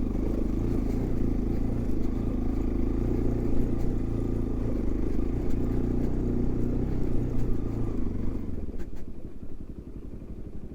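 Motorcycle engine, a Bajaj Pulsar NS200's single-cylinder, running steadily, then dropping back to a quieter idle about eight seconds in.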